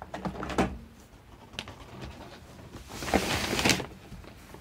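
Paper rustling as a hand slides across large sheets of pattern-drafting paper, loudest for a moment a little after three seconds in, with a few light knocks and clicks from a marker being picked up earlier.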